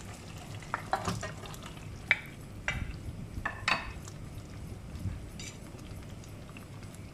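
Marinated chicken pieces tipped from a bowl into a pan of simmering sauce: several sharp clinks and scrapes of dish against pan between about one and four seconds in, over a steady low bubbling of the sauce.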